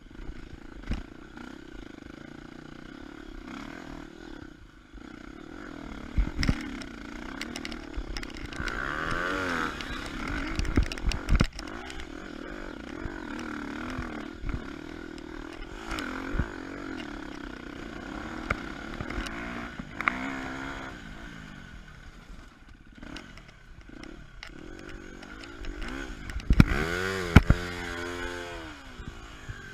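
KTM 250 EXC-F four-stroke single-cylinder dirt-bike engine being ridden on a trail, its revs rising and falling repeatedly with the throttle. Sharp knocks and clatter from the bike hitting bumps, loudest about eleven seconds in and again near the end.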